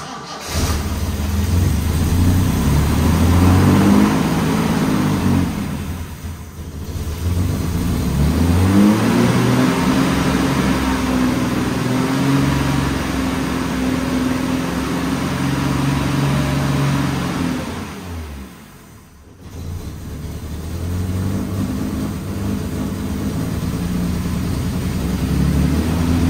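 Triumph TR6 straight-six engine catching and running unevenly, its revs rising and falling; twice the revs sag away almost to a stall and then pick up again. The owner assumes the mixture is a little too lean on the freshly rebuilt carburettors.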